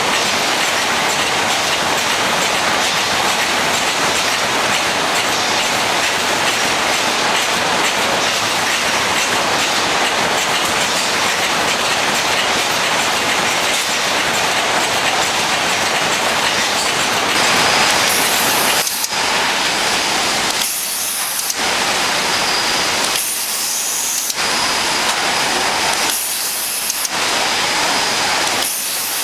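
Loud, steady packaging-line machinery noise: robots and conveyors running. From about eighteen seconds in, the noise turns rhythmic, alternating about once a second between a hiss and quieter stretches.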